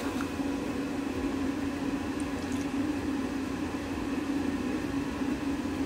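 Steady low mechanical hum of a running fan or appliance, constant throughout.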